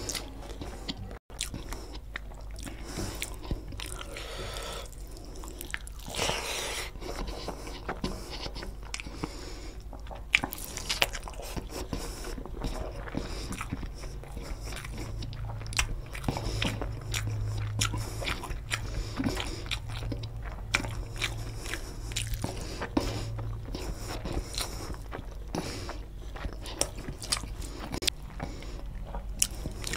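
Close-miked chewing of rice and egg curry eaten by hand: many small wet smacks and clicks of the mouth.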